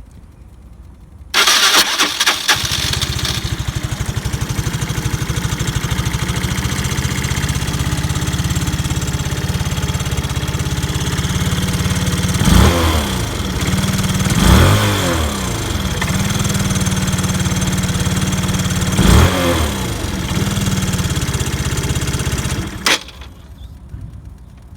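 Yamaha BWS X scooter's single-cylinder engine started about a second in, idling steadily, blipped three times, then switched off near the end. A metallic knocking comes from the transmission case, which the owner takes to be the starter clutch.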